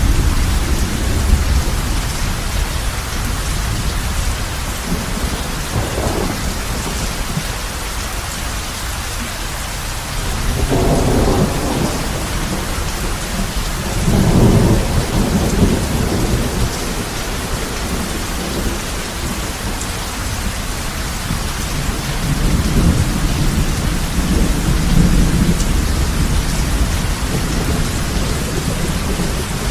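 Heavy rain falling on a roof in a steady dense hiss, with low rolls of thunder rumbling under it several times, the strongest about halfway through.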